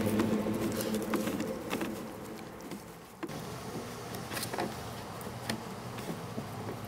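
Music fades out over the first couple of seconds. Then a Pembroke Welsh Corgi puppy gnaws on a rawhide bone: small scattered clicks and scrapes over a low steady hum.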